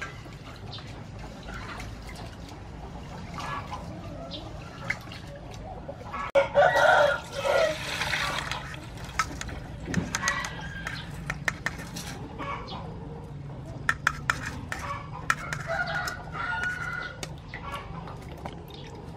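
A rooster crows once, loud and lasting about two seconds, about six seconds in, with chickens clucking now and then. Under it, sticky rice is swished by hand in a steel bowl and its rinse water is poured off through a mesh sieve, with small clinks and splashes.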